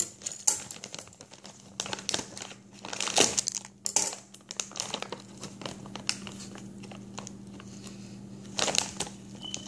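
A plastic bag of frozen okra crinkling and rustling as it is handled, in irregular crackly bursts that are busiest in the first half and pick up again near the end.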